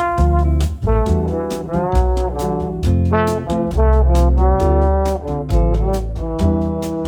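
Instrumental background music: a melody of clear held notes over a bass line and a steady beat.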